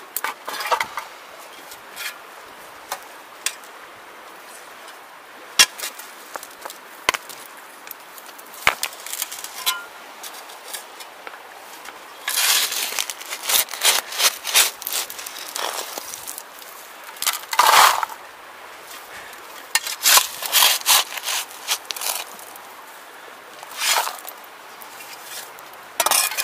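Leafy brush rustling and scraping against the camera as someone pushes through it on foot, with scattered sharp clicks and knocks. The rustling comes in louder bursts in the second half.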